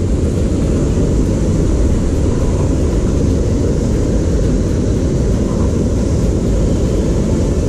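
Steady roar of water pouring over a small concrete weir and churning in the stream below, heavy and low.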